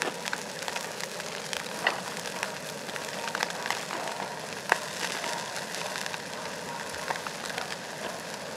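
Beef sizzling in a hot pan: a steady hiss with frequent sharp pops of spitting fat, one pop louder about halfway through.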